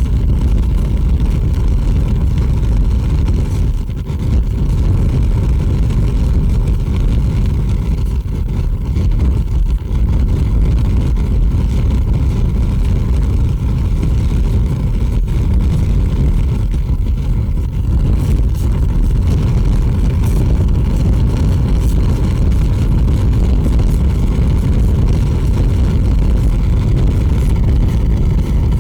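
A large fire burning with a steady, dense low rumble and a few faint crackles.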